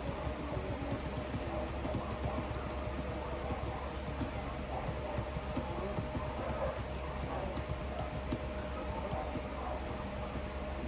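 Light, irregular clicking of a computer keyboard being typed on, over a steady low hum.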